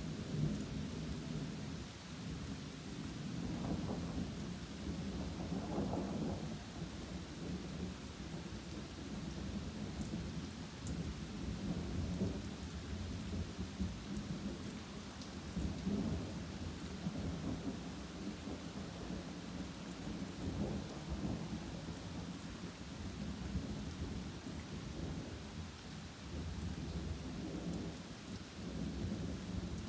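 Steady rain falling through trees under near-continuous rolling thunder. The low rumble swells and fades every few seconds, loudest around four, six and sixteen seconds in.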